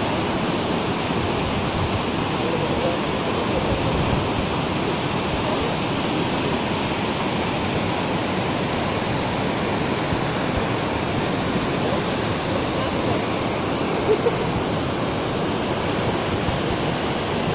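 White water rushing over rock rapids and a waterfall: a steady, even noise that does not change.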